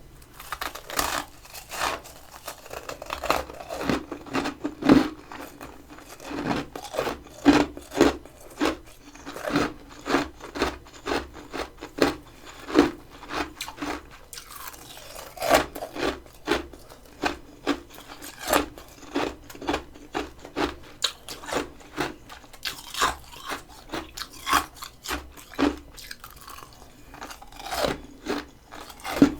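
Close-up crunching and chewing of humidifier-grown mini-freezer frost in the mouth: a steady run of crisp crunches, about two a second.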